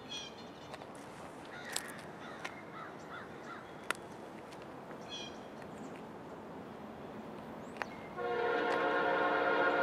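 A distant Norfolk Southern freight locomotive's air horn starts sounding about eight seconds in, a steady chord of several tones held to the end.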